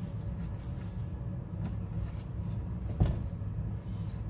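A low steady hum, with a few faint clicks and one sharper knock about three seconds in.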